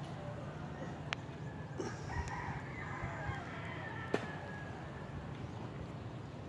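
A drawn-out, wavering animal call about two seconds in, over a steady low rumble, with two sharp clicks, one about a second in and one about four seconds in.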